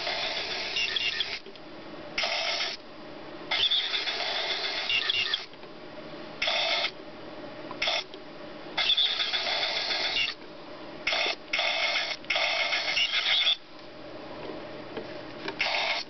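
Tiny gear motors of a Zibits miniature remote-control robot whirring in about ten start-stop spurts, from a fraction of a second to about two seconds each, as it is driven forward, backward and turned.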